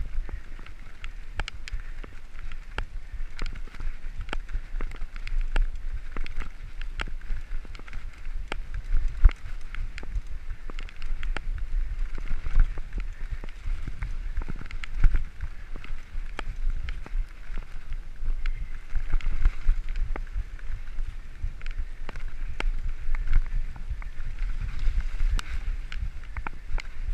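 Mountain bike ridden fast over a gravel forest track: a constant low rumble of the tyres rolling on the loose surface, with frequent sharp rattles and clicks as the bike jolts over stones.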